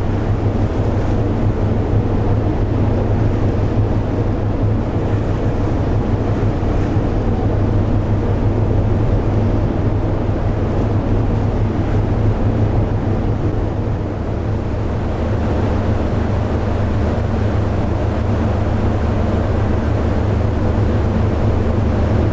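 A ship's engine running with a steady low drone, with wind noise on the microphone.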